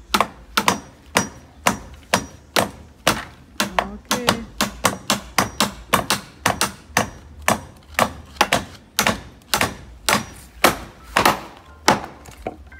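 Hammer blows on wood, a steady run of sharp strikes at about three a second, as nails are driven into the timber of a new set of wooden steps.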